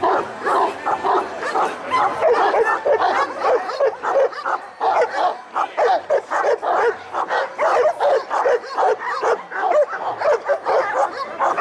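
Šarplaninac dogs barking without a break, several barks a second, overlapping.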